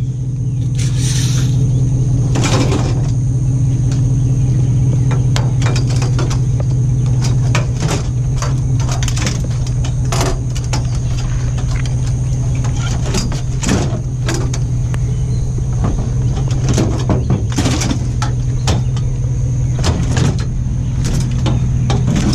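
Truck engine idling with a steady low hum, while scrap and trash are handled and loaded, giving many sharp clanks and knocks at irregular moments.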